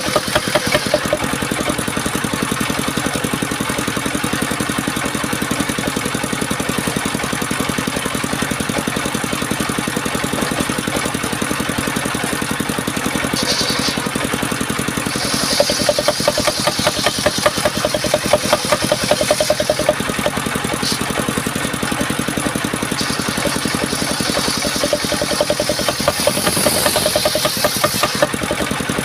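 Engine driving a homemade circular saw, running steadily with a fast, even firing pulse. Louder stretches with added hiss come about halfway through and again near the end.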